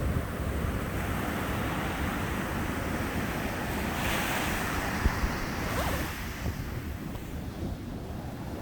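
Sea waves breaking on the beach: steady surf wash with a swell of foamy hiss about halfway through that then eases off, and wind rumbling on the microphone.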